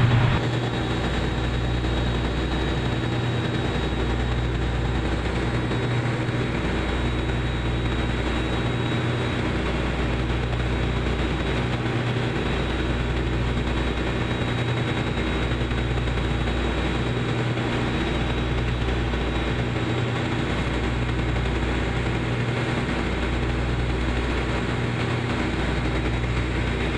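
A tugboat's diesel engines running steadily under way: a low hum with a slow, regular throb about every two and a half to three seconds.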